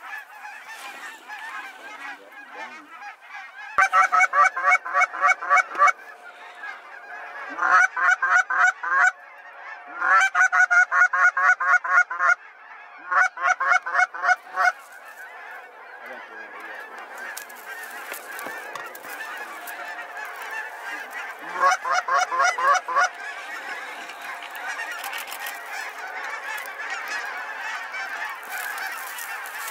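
Large flocks of geese, many of them snow geese, calling overhead as a steady din of honks. Several loud runs of rapid, evenly spaced honks rise above it in the first fifteen seconds and again about 22 seconds in.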